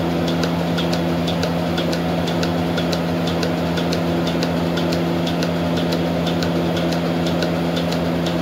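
A steady low mechanical hum, engine-like, with a fast, regular ticking over it.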